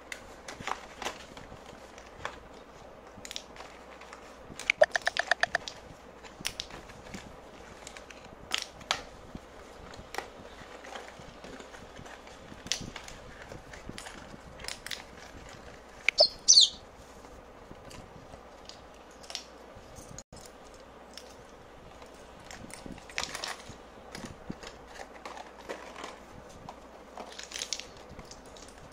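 Hand-handling sounds of cardboard boxes and small aluminium coffee capsules on a tiled floor: scattered taps, clicks and rustles. There is a rapid run of clicks about five seconds in, and a loud short burst with a falling squeak about sixteen seconds in.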